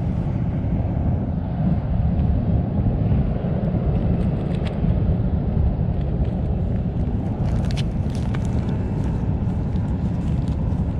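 Wind rumbling on the microphone: a steady low rush. A few light clicks come in over it in the last few seconds.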